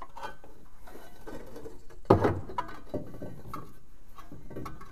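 Cast-iron exhaust manifold knocking and clinking against metal as it is worked down into a 1958 Buick's engine bay from the top, with one sharp clunk about two seconds in.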